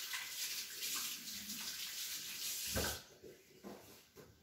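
Water running from a kitchen tap, shut off about three seconds in with a short knock.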